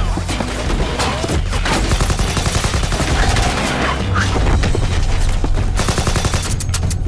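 Rapid automatic gunfire in a film action-scene mix: many shots in quick succession, thickest near the end, over a steady deep rumble.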